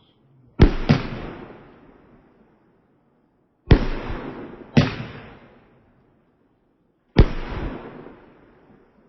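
Big-bang fireworks bursting overhead: five loud bangs, a close pair about a second in, another pair a second apart near the middle and a single one near the end, each dying away in a long fading echo.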